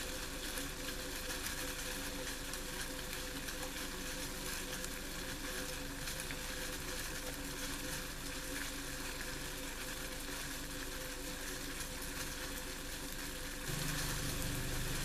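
Sliced shallots boiling in a cup of water in a small pot on the stove: a steady hiss and simmer. A lower hum comes in near the end.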